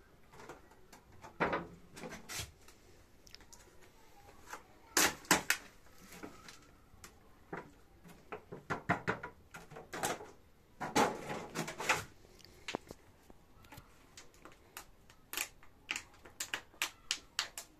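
Hands working in a glass terrarium tank with coconut coir substrate: irregular taps, knocks and short rustling clatters, loudest in clusters about five and eleven seconds in.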